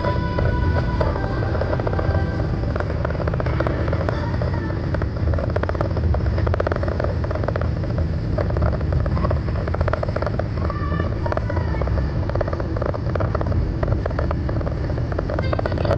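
Steady road and engine noise heard inside a car's cabin at highway speed: a low rumble of tyres on concrete freeway pavement.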